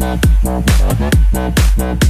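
Electro house dance music: a heavy four-on-the-floor kick drum about twice a second, with synth stabs sliding down in pitch between the kicks.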